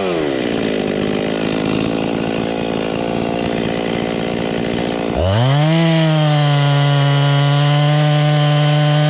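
Husqvarna chainsaw cutting through a log. Its engine pitch drops and holds low as the chain bites into the wood, then about five seconds in climbs sharply and runs steady at high revs.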